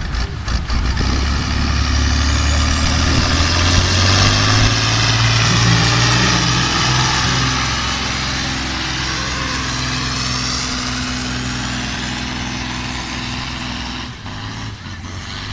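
Tuned Fendt 614 tractor engine, said to make 300 hp, running at full power on a pull. A high whine rises in pitch over the first few seconds, and the engine fades as the tractor moves away down the track, dropping off near the end.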